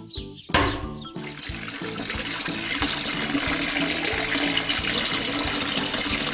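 Liquid pouring steadily, the sound of fuel being filled into a toy tractor's tank, starting with a short sudden hit about half a second in and growing a little louder, over background music with a steady beat.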